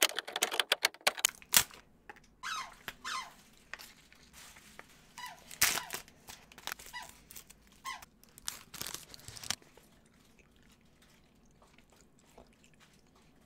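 Foil fruit-snack wrapper being torn open and crinkled: a run of crackles and rustles with a few short squeaks, stopping about ten seconds in.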